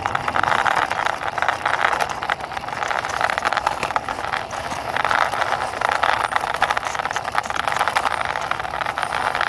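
Plastic wheels of a toy tank rolling over rough concrete as it is pushed by hand: a continuous gritty rolling rattle of fine clicks that swells and eases with each push.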